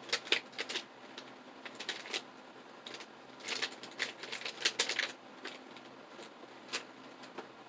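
Plastic 2x2 mirror cube being turned by hand: its layers click and clack in quick runs, busiest in the first second, around two seconds in and between about three and a half and five seconds, then sparser.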